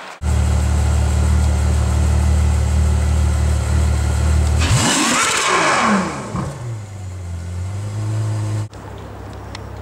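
Supercar engine: a loud, steady low engine note, then about halfway through it revs and accelerates, its pitch sweeping down and up with a rush of exhaust noise, before settling to a quieter steady engine note. A hard cut near the end switches to another car's engine running.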